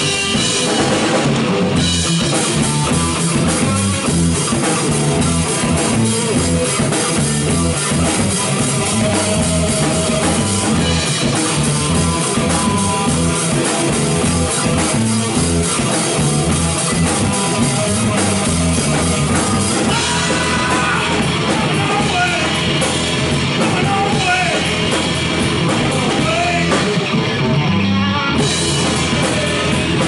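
Live rock band playing: hollow-body electric guitar, electric bass and drum kit, loud and steady with a driving beat.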